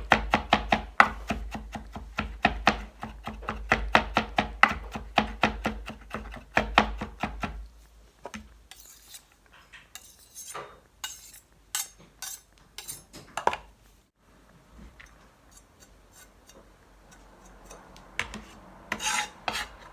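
Kitchen knife mincing garlic on a chopping board: rapid, steady chopping strokes, several a second, for about seven seconds, then slower scattered taps and clicks.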